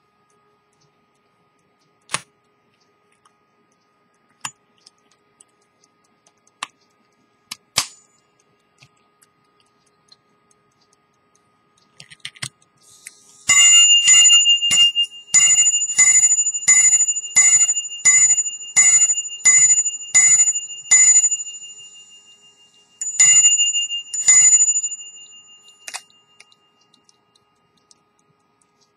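Antique English quarter-repeating pocket watch striking the time on its bell. A long, even run of ringing strikes comes about two a second, then after a short pause two more strikes, the hours followed by the quarter. Small clicks from handling the watch case and pendant come before the striking.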